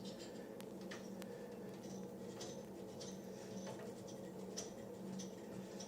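Faint, irregular small clicks and ticks of a screwdriver working on the mounting screws of a wall sconce, over a steady low hum.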